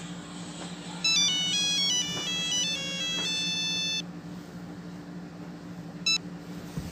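Smartphone ringtone: a bright electronic melody of stepping notes plays for about three seconds and cuts off when the phone is picked up, then a short beep about two seconds later, over a steady low hum.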